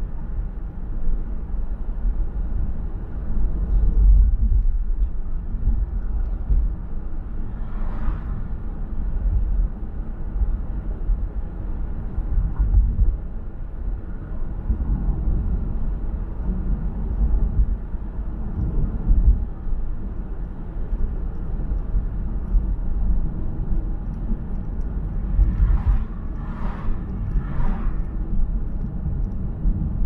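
Steady low road and tyre rumble of a car on the move, with a brief swell about eight seconds in and three short swells near the end.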